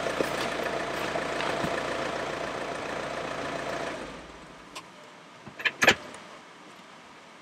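Pickup truck's engine running steadily with a door open, dying away about four seconds in. A few sharp clicks and knocks follow near the end, the last the loudest.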